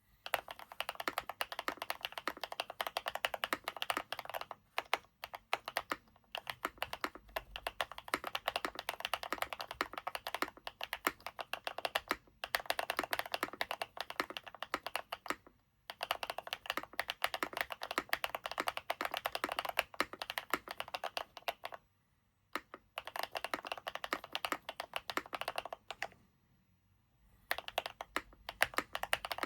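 Typing on an NK87 mechanical keyboard fitted with BSUN x Zuoce Macaron linear switches: dense, fast runs of key clacks broken by several brief pauses.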